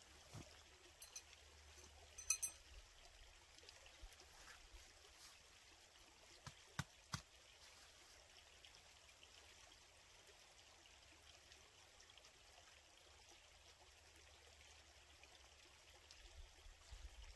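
Near silence: a faint steady hiss with a few soft clicks, the sharpest about two seconds in and a cluster of three around seven seconds in.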